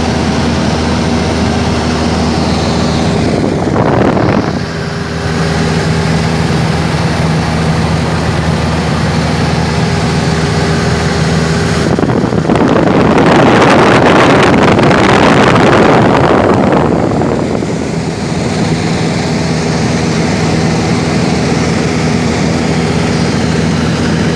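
Cessna 172 Skyhawk's piston engine and propeller running steadily in cruise, heard from on board. A short rush of wind noise comes about four seconds in, and a louder rush of wind about twelve seconds in lasts some five seconds over the engine.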